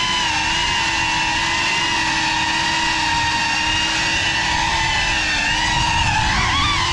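Brushless motors and ducted propellers of a GEPRC Cinelog35 6S cinewhoop drone whining in flight, heard from the onboard camera. The pitch holds steady through most of it, then swoops up and down near the end as the throttle changes.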